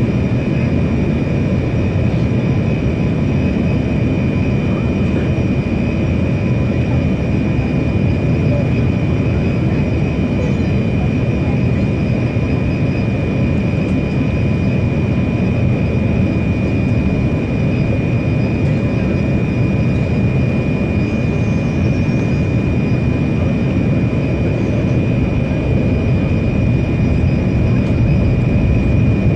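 Cabin noise inside a Boeing 787 Dreamliner in flight: a steady low rush of jet engines and airflow, with a thin steady whine above it. It grows slightly louder near the end.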